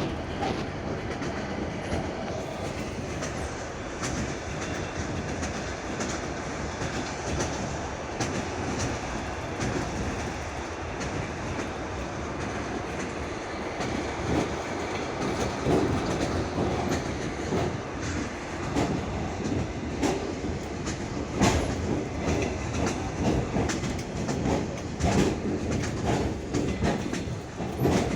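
Train wheels clattering over the rails, heard from inside a moving passenger carriage, with a steady rumble underneath. The knocks grow more frequent and louder from about halfway through.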